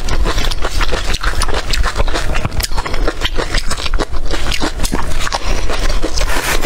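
Close-miked chewing of green chili peppers coated in chili flakes: wet, irregular crunches and mouth sounds that come thick and fast, over a steady low hum.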